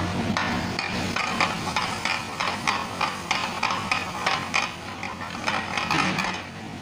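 Metal ladle scraping and clacking against a frying pan as a thick spiced chicken masala is stirred, about three strokes a second, stopping shortly before the end. A steady low hum runs underneath.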